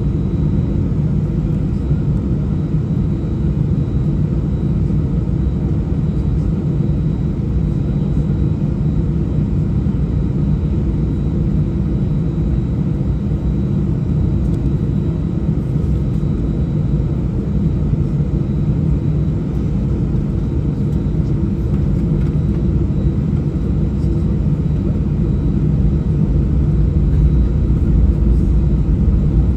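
Airbus A319 jet airliner on the ground before takeoff, heard from inside the cabin: a steady low rumble of the engines at low thrust and the airframe rolling, growing slightly louder near the end.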